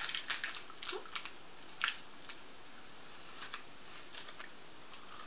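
A few sharp crinkles and clicks of a plastic snack wrapper in the first two seconds, then sparse faint crunching as a crispy rice cereal bar is chewed.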